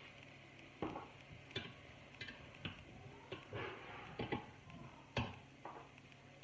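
Plastic slotted spatula clacking and scraping against a stainless steel pot as browning ground beef is stirred: a dozen or so irregular sharp knocks.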